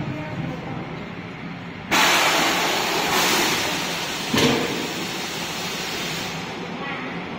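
Automatic 5-gallon bottle washing-filling-capping machine running with a steady hum. About two seconds in, a loud hiss starts suddenly as the washing jets spray into the inverted bottle, then slowly dies down. A short mechanical knock comes near the middle as the line indexes.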